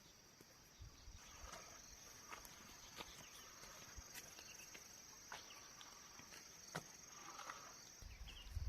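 Faint, steady high-pitched insect trilling, with scattered light clicks and taps. A low rumble comes in near the end.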